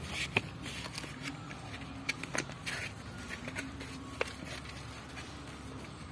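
A steady low mechanical hum with a few short, sharp clicks scattered through it.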